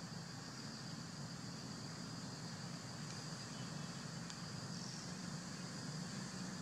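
Steady high-pitched insect drone over a low hum, with a few faint ticks.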